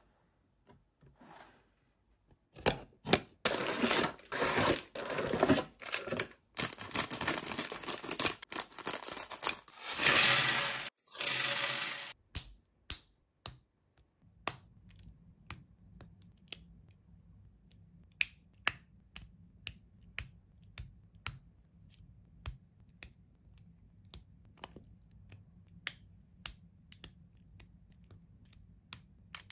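Handling noise: loud rustling and clattering broken by sharp clicks for about ten seconds, then a faint low hum with sharp clicks about once or twice a second.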